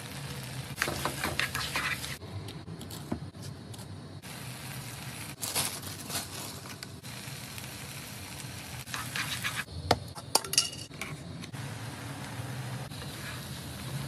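Rice with diced carrots and cabbage sizzling in a frying pan as it is stirred with a spatula, with a few sharp clicks and clinks against the pan and a steady low hum underneath.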